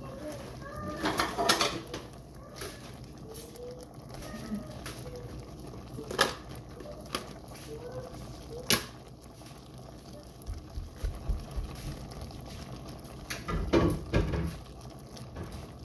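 Faint high-pitched vocalizing of young children in the background, broken by a few sharp clicks and knocks of kitchen clatter: a pair about a second in, single ones around six and nine seconds, and a cluster near the end.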